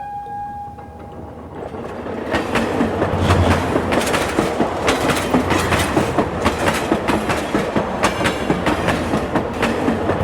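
A pitched horn-like tone fading out in the first second, then a dense clattering rattle of many rapid clicks that builds up and keeps going.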